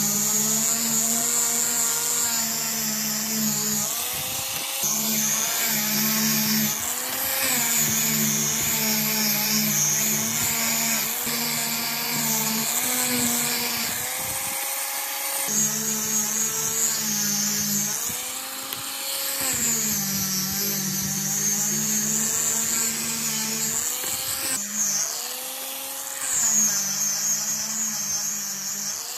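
Angle grinder fitted with a sanding disc, running as it sands a thin wooden slat. Its motor whine repeatedly dips in pitch and recovers as the disc is pressed into the wood and eased off.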